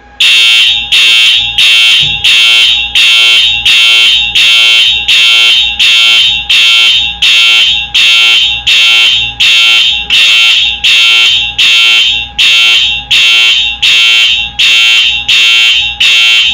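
Wheelock EHS-DL1 fire alarm horn sounding a march-time code: a loud, harsh electronic horn tone pulsing on and off at an even pace, about three pulses every two seconds.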